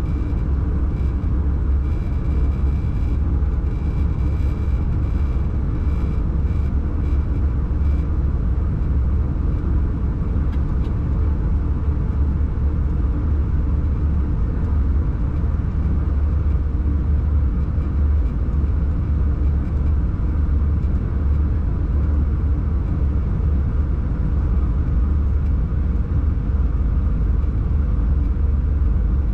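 Locomotive running steadily on the line, heard from inside the cab: an even, deep rumble with running noise over it. A faint high tone comes and goes during the first several seconds.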